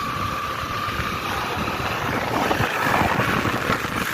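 A tractor's diesel engine running steadily as it drives along the road, with road and wind noise. A steady high whine sounds through about the first second.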